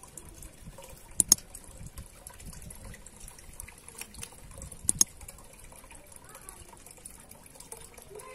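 Faint, even background noise, broken twice by a sharp double click: once about a second in and again about five seconds in.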